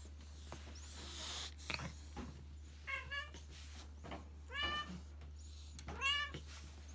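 A cat meowing three times, about a second and a half apart, the last call the loudest, with some rustling just before the first.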